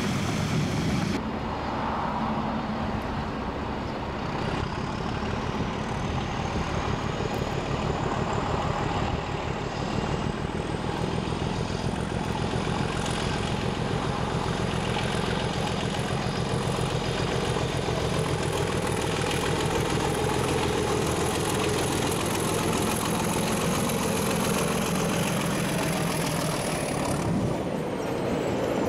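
English Electric DG-class diesel-electric locomotive running under power as it hauls a train of carriages past. A high whine rises in pitch over several seconds and then holds steady.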